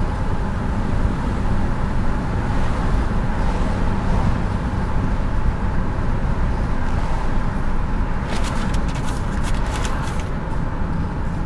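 Steady low rumble of engine and road noise inside a moving car's cabin, with a quick run of sharp clicks about eight seconds in.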